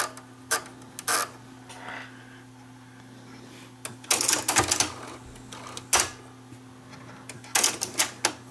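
Cassette deck mechanism of a Panasonic RX-DT680 boombox running with a steady low hum, while fingers work its supply reel hub. The hub sticks and won't turn because it is not pushed fully onto its spindle. Plastic parts of the mechanism click and clatter, singly and in two short clusters about four and seven and a half seconds in, and the hum cuts off a little before the end.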